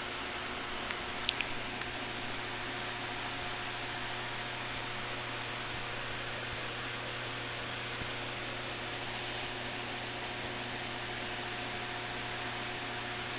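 Steady electrical hum under a constant hiss, unchanging throughout, with a couple of tiny high clicks just over a second in.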